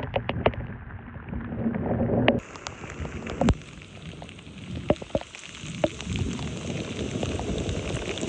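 Heavy rain pouring down steadily, with many scattered sharp taps of drops striking close by.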